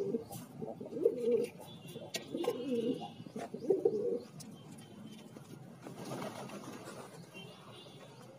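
Domestic pigeons cooing: a series of low, wavering coos over the first four seconds or so, then quieter.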